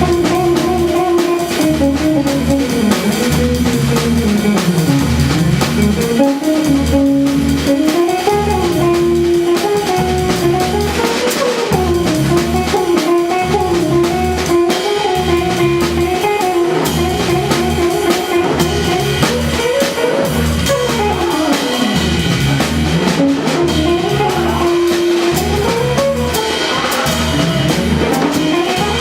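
A jazz trio playing a tune, with a melody that winds up and down over an even low pulse.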